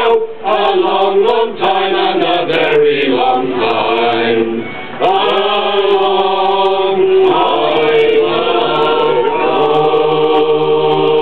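A mixed men's and women's shanty choir singing unaccompanied in parts. For the first few seconds the sung line moves quickly. From about five seconds in the voices hold long, drawn-out notes, as at the close of the song.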